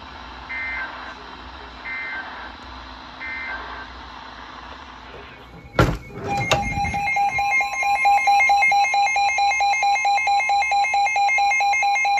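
Weather radio going off for a severe thunderstorm warning: a sharp click about six seconds in, then a loud, rapidly pulsing electronic alarm with a steady high tone beneath it. Three short beeps come before it, over a low background hiss.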